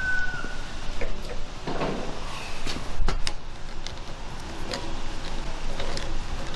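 Scattered metallic clicks and knocks of hand tools and parts being handled while a stud is fitted into a big-block Chevy cylinder head, with one sharper knock about three seconds in.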